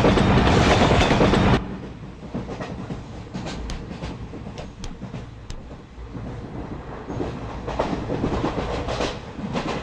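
Loud train noise that cuts off suddenly about a second and a half in, then a moving train running more quietly, its wheels clacking over the rail joints.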